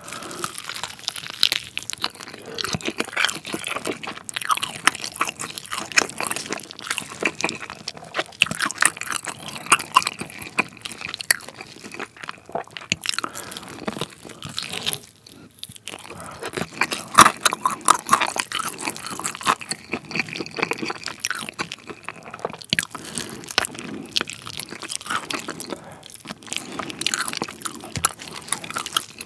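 Close-miked eating of a crispy sauced fried chicken drumstick: bites crunching through the coating, then chewing with crackles and wet mouth sounds, with a short pause about halfway.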